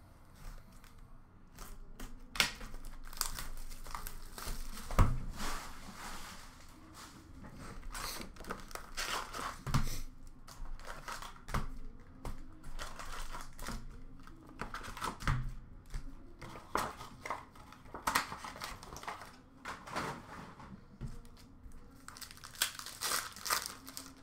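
Plastic shrink wrap being cut and torn off a cardboard box of hockey card packs, then the box flap opened and the wrapped packs pulled out and handled: irregular crinkling and tearing with a few sharp knocks.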